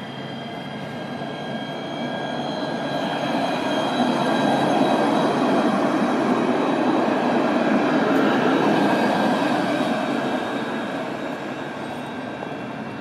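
Alstom Citadis low-floor electric tram passing close by: its running noise grows, is loudest about four to nine seconds in as the cars go past, then fades as it pulls away. A steady high-pitched whine sits over the rolling noise.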